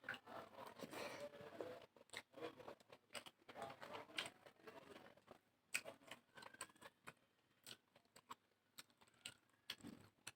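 Close-miked eating sounds: wet mouth clicks and chewing while eating rice with curry by hand. The sounds come thickly in the first half and thin out to scattered clicks after about halfway.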